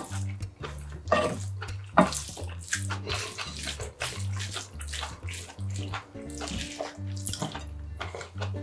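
Wet chewing and a wooden spoon stirring sauce-dressed rice and vegetables in a ceramic bowl, with many small squelches and clicks. Background music with a repeating bass line plays underneath.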